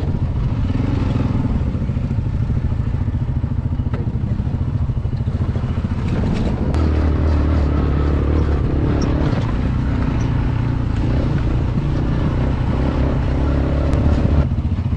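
Off-road vehicle's engine running steadily over rough ground, with scattered knocks and clatter. The engine note grows stronger about seven seconds in.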